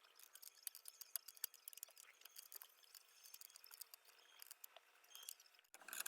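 Near silence with faint, scattered small clicks.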